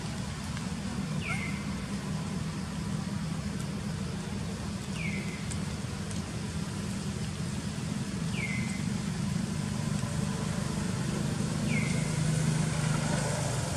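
Steady low rumble of a running vehicle engine. Over it, a short, falling, high chirp, typical of a bird call, repeats about every three and a half seconds, four times.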